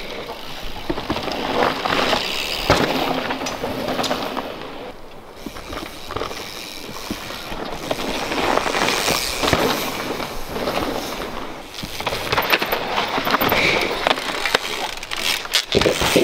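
Mountain bikes passing in turn on a loose dirt trail: tyres rolling and skidding through dirt and pine needles in swells of noise as each rider goes by, with sharp clatters and knocks from the bikes.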